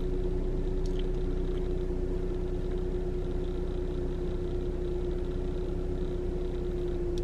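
Steady low hum inside a running car, with one constant tone held throughout; a faint click about a second in.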